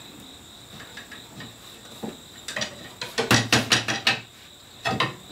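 A hammer tapping on the wooden crest rail of a Windsor chair, driving it down onto the spindle tops: a quick run of light taps about halfway through, then two more near the end.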